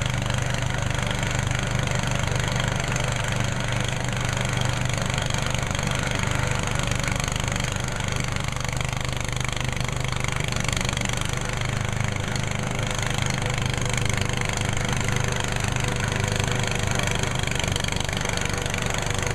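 Garden tractor's engine running steadily while driving a front-mounted snowblower through snow, a steady low drone that barely changes.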